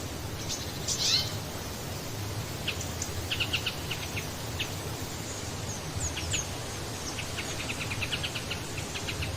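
Small birds chirping: short, thin, high chirps and quick trills, with a fast falling chirp about a second in and a rapid run of chirps near the end, over a steady outdoor background hiss.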